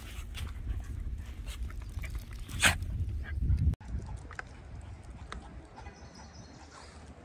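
A dog's sounds close by, over a low rumble and scattered clicks, with one loud short burst of noise near the middle. The sound cuts off abruptly a little before four seconds in, leaving quieter clicks.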